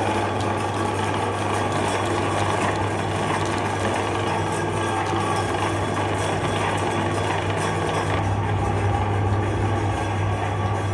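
Electric meat grinder running steadily: a constant motor hum with mechanical noise over it, the hum growing a little stronger about eight seconds in.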